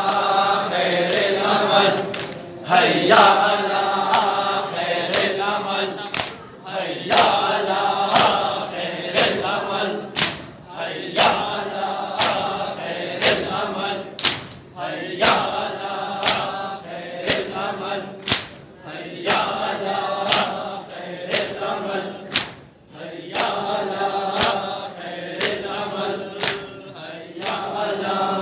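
A crowd of men chanting a noha in unison during seena zani, with their hands beating their bare chests together about once a second.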